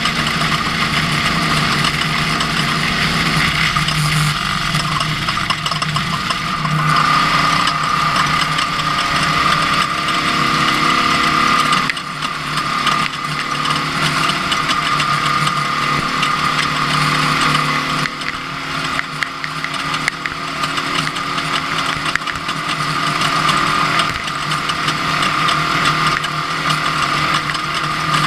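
Ford Ranger off-road race truck running under way: engine and drivetrain with a steady whine over a dense mechanical clatter.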